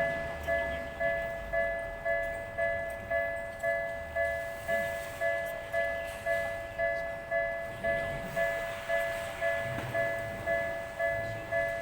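Japanese railway level-crossing warning bell ringing steadily, an electronic two-tone ding repeating about twice a second.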